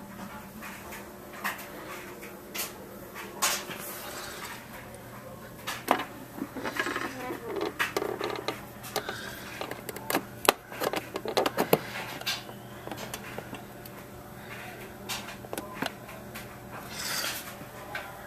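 Irregular clicks, taps and rustling of close-up handling, busiest through the middle with one sharp louder knock, over a steady low hum.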